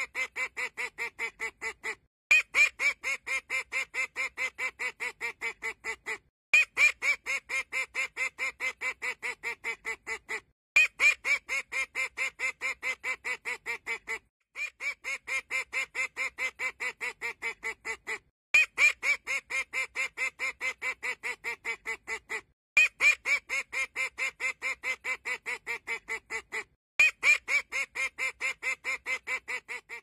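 A duck quacking in fast runs of about five quacks a second. Each run lasts about four seconds, starts with a louder quack and breaks off briefly before the next, and the same run repeats over and over.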